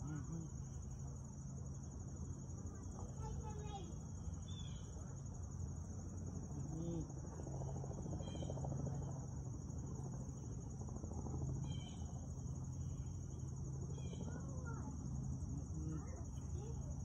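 Steady high-pitched drone of insects, with a low rumble underneath and scattered short chirps.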